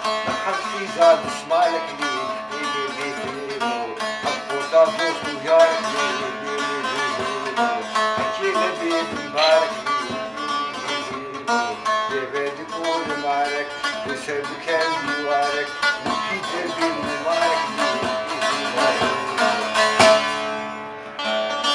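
Saz (long-necked lute) plucked in a fast, continuous run of notes, played in a folk style, with a brief dip in level near the end.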